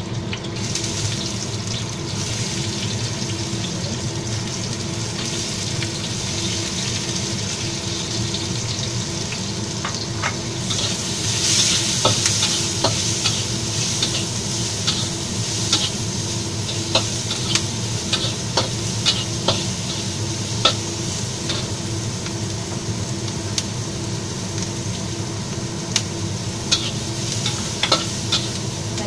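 Sliced onions sizzling in a hot steel wok over a gas flame, the sizzle growing louder about ten seconds in. A spatula scrapes and clinks against the wok as the onions are tossed.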